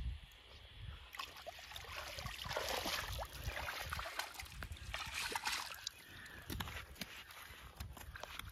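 Hands and feet working through thick mud and shallow water: irregular small splashes, sloshes and trickles of water.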